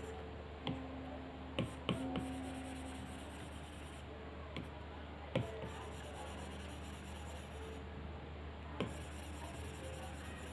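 Stylus tip tapping and sliding on the glass screen of an iPad Pro in short painting strokes, with sharp taps every second or so. The taps bunch together early, then come a few seconds apart, over a low steady hum.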